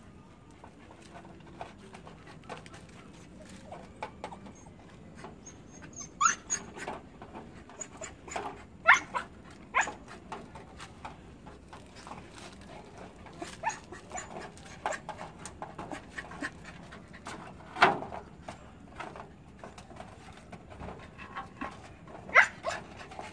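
Husky whining in short, high-pitched cries, a dozen or so scattered a few seconds apart, with the strongest about nine and eighteen seconds in.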